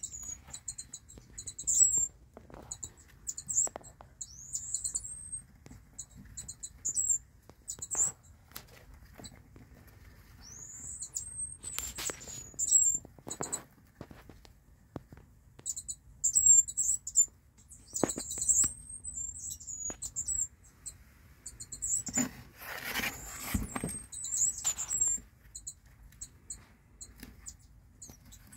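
Mongolian gerbils squeaking: short high-pitched chirps in clusters every second or two, with scratching and rustling in the sand and wood-shaving bedding, loudest about 22 seconds in.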